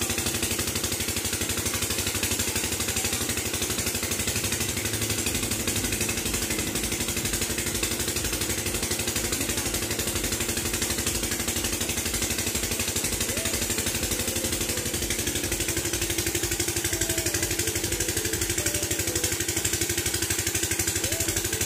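An engine running steadily at idle, with a fast, even pulsing and no change in speed.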